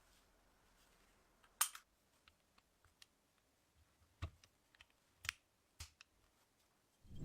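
Sharp metal clicks from the restored antique pistol being handled: a handful spread out, the loudest about one and a half seconds in. A dull thump comes near the end.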